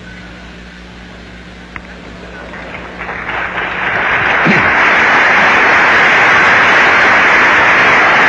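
Audience applause, rising over a couple of seconds and then holding steady and loud. Before it, a low steady hum from the old recording.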